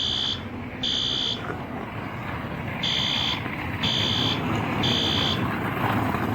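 System Sensor P2RK fire alarm horn sounding the temporal-3 evacuation pattern, the signal that a building's fire alarm is in alarm. It gives high-pitched half-second beeps about a second apart in groups of three, with a longer pause between groups. Two beeps come at the start, then a full group of three about three seconds in.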